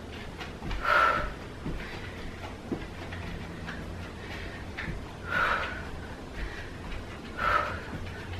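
A woman breathing hard after exercise: three heavy exhales, about a second in, around five seconds and near the end.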